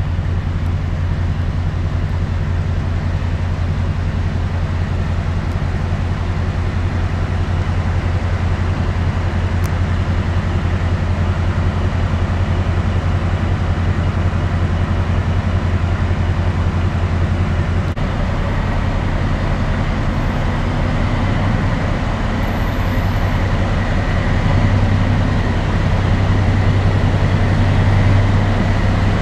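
Diesel locomotive of a yellow railway work train running with a steady low drone as it creeps toward the platform, growing louder over the last few seconds. A faint high whine joins partway through.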